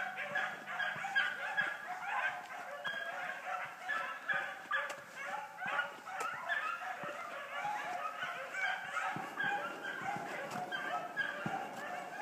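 A pack of hounds baying together in full cry, many overlapping voices in quick repeated calls, the sound of dogs running a hot scent trail.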